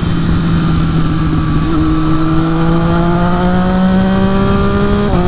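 Triumph Street Triple 675's three-cylinder engine running under way at highway speed. It holds a steady note that slowly climbs in pitch from about two seconds in as the bike gathers speed, over a rush of wind and road noise.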